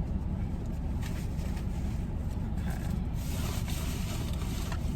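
Steady low rumble inside a car cabin, with a brief rustle lasting about a second and a half starting just past the middle.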